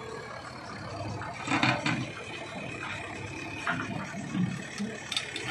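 JCB backhoe loaders' diesel engines running as they work the ground, with a brief louder burst of noise about a second and a half in.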